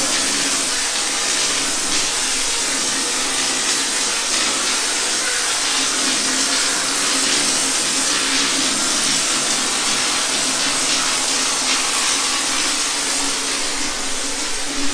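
Steady hiss of compressed air through a drywall texture hopper gun spraying texture onto a ceiling, with a steady low hum beneath it.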